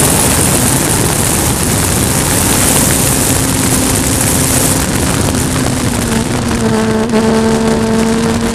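Race car at speed on track, heard onboard: engine running under load over loud wind and road noise. A steady engine note comes in about two seconds in and settles slightly lower around six seconds in.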